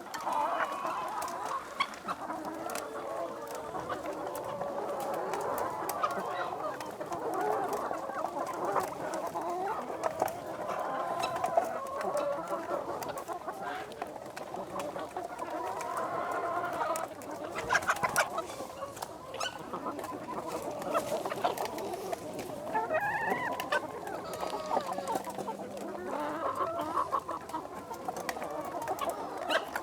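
A large flock of Leghorn hens clucking and calling at once, many voices overlapping, with scattered sharp knocks and scratches.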